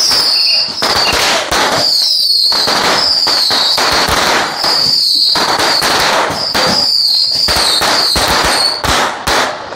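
A string of firecrackers going off in a dense, continuous crackle, with a few short lulls. A high wavering whistle-like tone comes and goes over the crackle.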